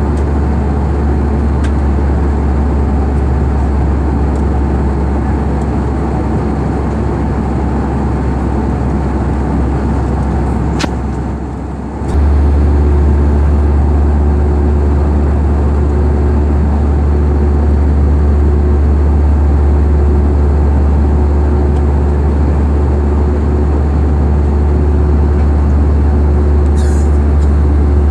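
Steady, loud, low engine drone with a constant rushing noise over it. It dips briefly about twelve seconds in, then returns slightly louder with a steady hum added.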